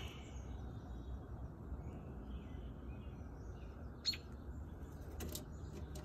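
Outdoor ambience: a steady low rumble with faint, scattered bird chirps, the sharpest one about four seconds in, and a few short high ticks just after five seconds.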